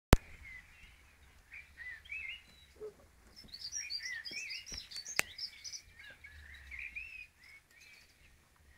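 Small songbirds chirping and singing, a quick run of short twittering notes. There is a sharp click right at the start and another about five seconds in.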